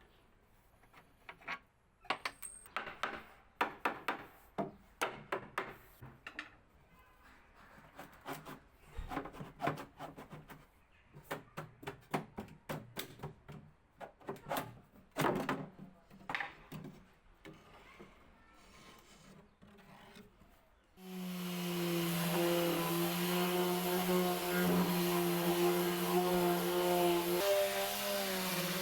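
Hand work on wood: irregular knocks, taps and short scraping or rubbing strokes. After about twenty seconds a power tool starts abruptly and runs steadily with a hum and a broad hiss.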